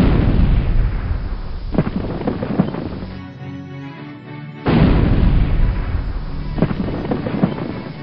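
Two deep booming crashes, one at the start and another about five seconds in, each rumbling away over a few seconds, with dramatic music underneath.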